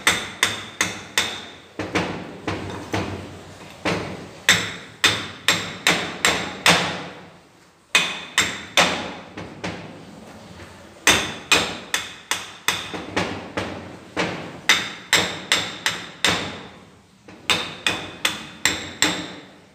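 Hand hammer striking the centrifugal pump's V-belt pulley and shaft, knocking the pulley off without a puller. Sharp metal-on-metal blows with a brief ring after each, in runs of about two to three a second broken by short pauses.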